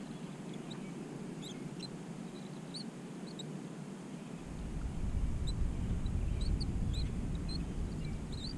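Small birds chirping in quick, scattered high notes over a low hiss of wind. About halfway through, a low rumble of wind on the microphone comes in and becomes the loudest sound.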